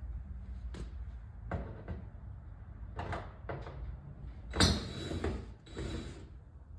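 Scattered knocks, clicks and rattles of hard plastic and metal being handled in a pickup truck's door while the factory speaker is unscrewed and pulled out, with one louder knock a little past halfway, over a low steady hum.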